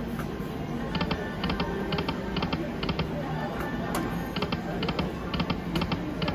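Aristocrat Gold Stacks video slot machine spinning its reels: quick clicking ticks in small groups, about two groups a second, over background music and chatter.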